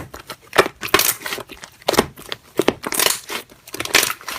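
Slime being pressed and squeezed by hand, a series of short squishy crackles, about one or two a second.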